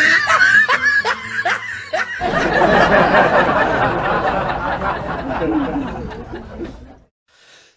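People snickering and laughing for about two seconds, then a stretch of loud, dense background noise that fades out about seven seconds in.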